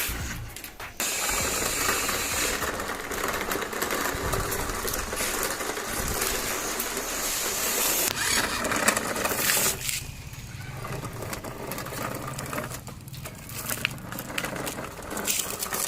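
Small electric drive motor and plastic gears of a toy RC truck whirring as it runs, easing off briefly about ten seconds in and again around thirteen seconds.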